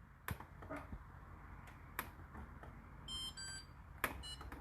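Whirlpool WFO3P33DLXUK dishwasher control panel: a few faint button clicks, then short electronic beeps about three seconds in and again near the end, as the 65 °C programme is selected.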